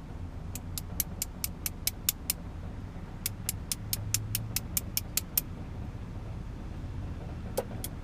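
Two runs of quick, light metallic clicks, about five a second, then two more clicks near the end, from small parts of a padlock cylinder being worked during rekeying. A low steady hum sits underneath.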